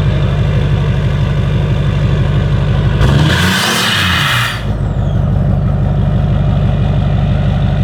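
LBZ Duramax 6.6-litre V8 turbodiesel idling, freshly fitted with a new downpipe; about three seconds in it is revved once, the pitch climbing and falling back over a second and a half with a loud hissing rush, then it settles back to idle.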